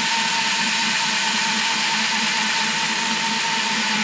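DeWalt cordless drill turning a hole saw through an ATV's plastic body panel: a steady motor whine over the hiss of the saw teeth cutting the plastic.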